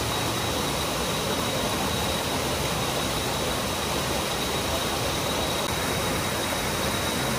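Small waterfall pouring onto a man sitting beneath it and splashing into a rocky pool: a steady, even rush of falling water.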